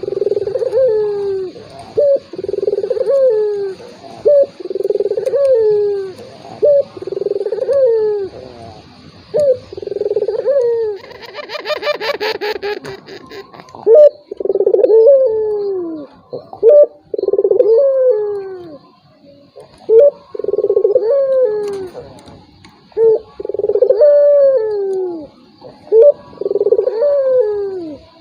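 Puter dove cooing over and over, each coo a short phrase that slides down in pitch, repeated about once a second. It is a lure call, played to draw a quiet rival puter into cooing back.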